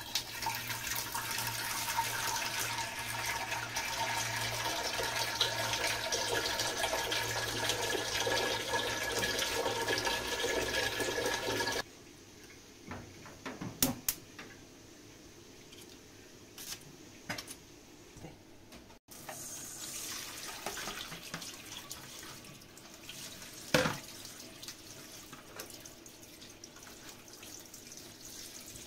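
Water running, as from a tap into a sink or pot, for about twelve seconds, then cutting off suddenly; after that a few faint knocks and clicks.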